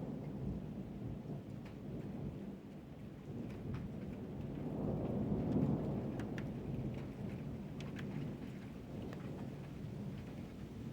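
Thunder rumbling over steady rain, the rumble swelling to its loudest about halfway through, with scattered raindrops ticking.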